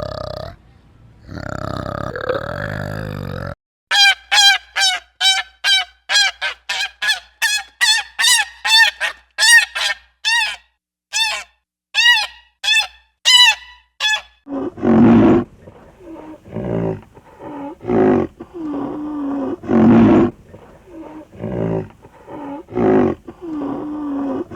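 Animal calls in three runs. A held call comes first, then a quick series of short, evenly spaced calls, each falling slightly in pitch, about two to three a second, and finally slower, lower, harsher calls.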